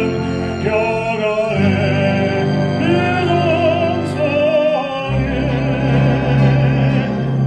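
Baritone singing with a wide vibrato, accompanied by an orchestra holding sustained low notes that move to new pitches twice.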